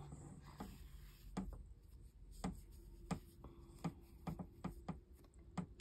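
Crochet hook and yarn being worked by hand: about a dozen soft, irregular clicks and taps.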